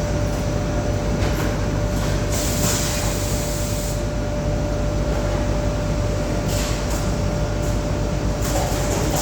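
Steady machinery noise: a constant low rumble with a steady whine over it, and a hiss that comes and goes every second or two.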